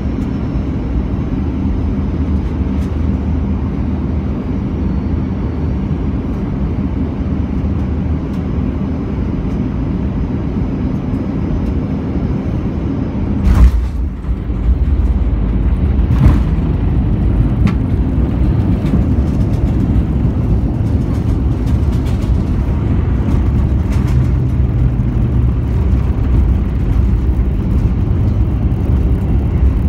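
Airbus A319 cabin noise from a window seat: a steady engine and airflow hum on final approach, then the touchdown lands with a loud bang about halfway through. After it, a louder runway rumble with scattered thumps as the airliner rolls out.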